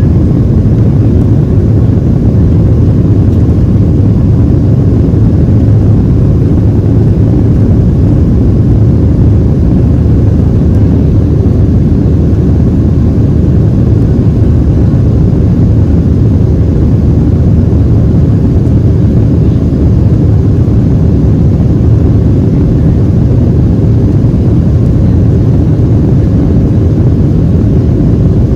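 Steady low rumble of a Boeing 737-700's CFM56-7B jet engines and rushing air, heard from inside the passenger cabin.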